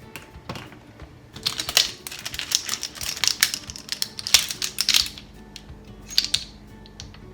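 Rapid clicking and scraping of a utensil against a mixing bowl, as in mixing batter by hand, busiest from about a second in until about five seconds, with background music.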